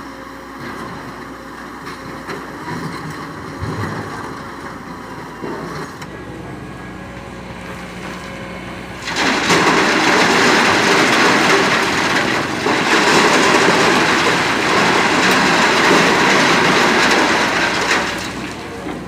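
Heavy machinery running at a sand pit. About nine seconds in, a loud, dense rush of sand and stones starts suddenly and lasts about nine seconds, typical of an excavator bucket dumping its load into a truck's steel bed.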